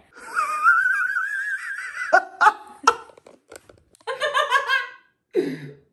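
A man and a woman laughing. A long, high, wavering laugh fills the first two seconds, then short bursts of laughter follow, with a deeper laugh near the end.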